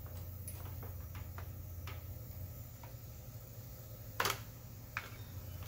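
Light metal clicks from a wrench and a steel foot-peg bracket being handled during disassembly, with one sharper clink about four seconds in and a smaller one just after, over a steady low hum.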